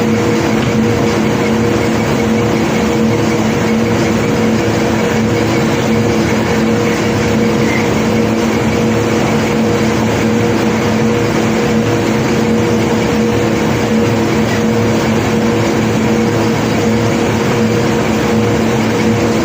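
Diesel engine of heavy unloading machinery running steadily at a constant pitch, a loud, even drone with no distinct impacts.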